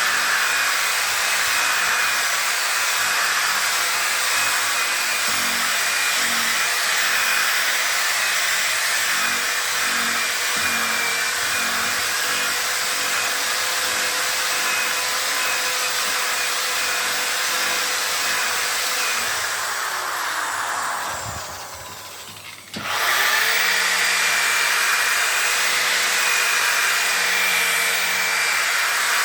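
Electric polisher spinning a buffing pad at a steady speed. About twenty seconds in it winds down, then starts up again and runs on a couple of seconds later.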